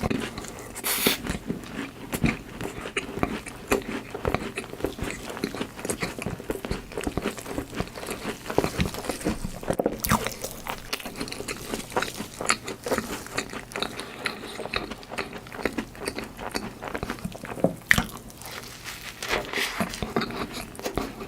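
Close-miked mukbang eating sounds: a person biting and chewing chocolate food, with a steady stream of small crunches and wet mouth clicks.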